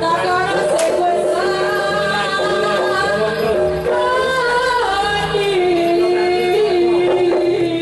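Javanese jaranan music: a woman sings a drawn-out, wavering melody over the ensemble, with a sharp percussion strike about a second in.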